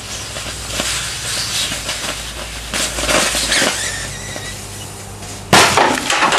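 Four Duracell 1.5 V D-cell batteries in series, overdriven with 42 volts AC from a transformer, hissing and crackling as they vent smoke over a steady transformer hum, then bursting with a sudden loud bang about five and a half seconds in. The hum stops at the bang.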